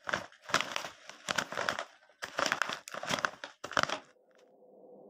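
Dry leaves crunching and crinkling in a run of irregular bursts, like footsteps through fallen leaves. About a second before the end a low rumbling swell begins to rise.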